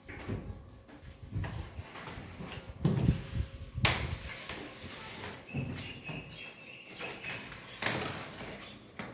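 A cutter scraping and slicing along the taped edge of a cardboard carton, with irregular knocks and thumps on the cardboard. The loudest knocks come about three to four seconds in and again near the end.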